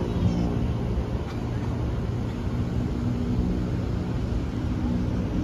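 Steady low rumble of city traffic, with a few faint engine hums in it.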